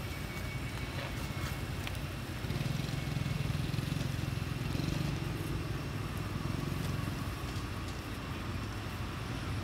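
Low rumble of a motor vehicle's engine in the background, swelling a couple of seconds in and easing off again, as from a vehicle passing.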